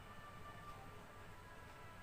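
Near silence: faint room tone with a steady low hum and a few faint high tones.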